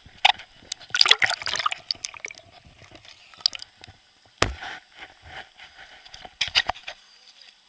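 Water splashing and dripping in irregular bursts as someone moves through it, with a single heavier knock about four and a half seconds in; the splashing stops near the end.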